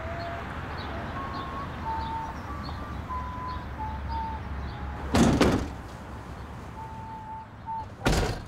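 Rear doors of a cargo van slammed shut about five seconds in, the loudest sound, over a steady low rumble with short high chirps. A second heavy thud comes near the end.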